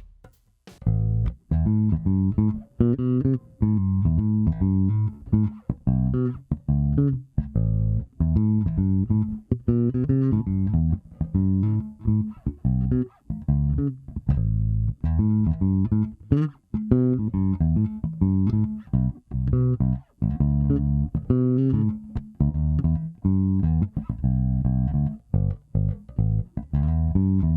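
Nordstrand Acinonyx short-scale electric bass played solo: a steady run of plucked notes with short gaps between them. Both of its vintage-style single-coil pickups are on, with the mid-scoop tone button engaged.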